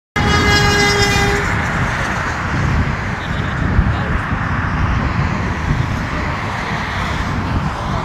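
Car horn sounding one steady blast for a little over a second, followed by wind buffeting the microphone with a low rumble.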